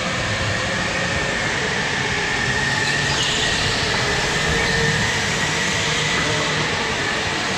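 A vehicle running steadily, a rumble with a thin high whine over it.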